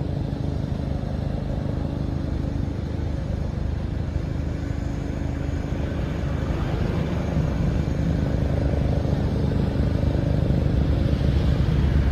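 Jet engine noise of the Boeing 367-80 "Dash 80" four-jet airliner in flight: a steady rumbling rush with a faint hum, growing louder over the last few seconds.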